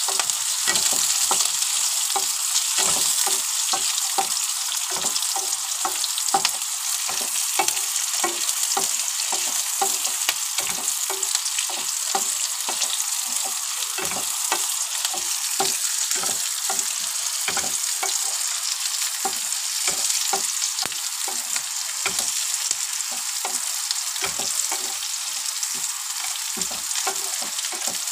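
Small onion pieces sizzling as they fry in hot oil in a pan, stirred continually with a wooden spatula that scrapes and taps against the pan two or three times a second over the steady hiss of the frying.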